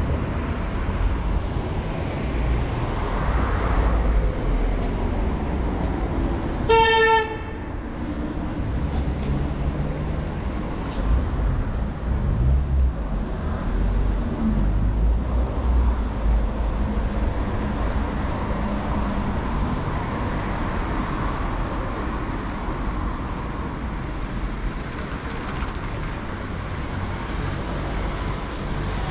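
Steady street traffic rumble from passing cars, with one short vehicle horn toot about seven seconds in.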